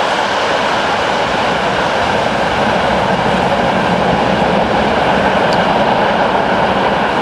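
Freight train of tank cars and gondola wagons rolling along the track: a steady, continuous noise of wheels on rails, with one faint click about five and a half seconds in.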